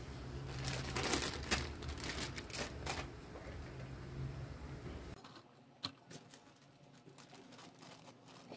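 Light clicking and rustling of plastic being handled: a plastic RC crawler truck and a clear bag of small plastic accessory parts. A low hum underneath cuts off abruptly about five seconds in, and there is one sharp tap shortly after.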